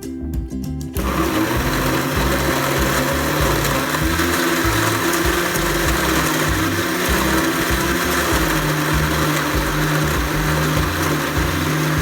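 An electric blender starts about a second in and runs steadily, blending apples, carrots, ginger, lemon juice and water into juice.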